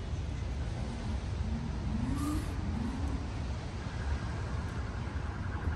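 Outdoor city ambience in the rain: a steady low rumble of distant traffic with an even hiss of rain on wet pavement. A few faint, short rising-and-falling tones come about two to three seconds in.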